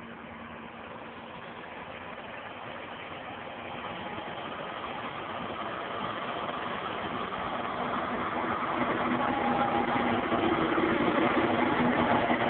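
John Deere 6210R tractor's six-cylinder diesel engine running steadily under load as it pulls a land leveller through the soil, growing louder as it draws near.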